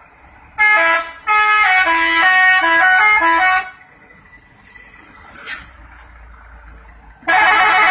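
Telolet musical vehicle horn playing a quick tune of short changing notes for about three seconds. A brief sharp noise follows, and another telolet horn blast starts near the end.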